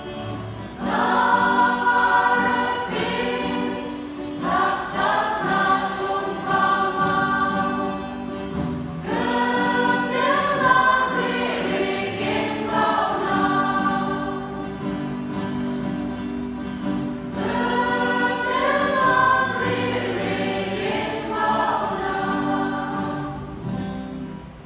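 Mixed choir, mostly women's voices, singing together in phrases of a few seconds that swell and ease off, over steady held low notes; the singing tails off near the end.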